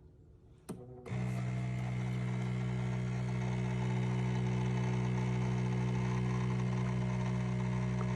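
Café Affetto automatic espresso machine running an espresso brew cycle: a click, then about a second in a loud, steady electric hum starts and holds.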